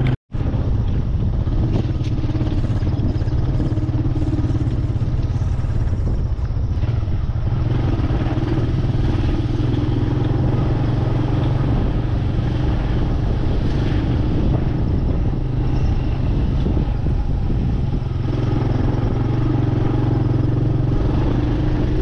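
Motorcycle engine running steadily while under way: a constant low drone with an even rushing noise over it.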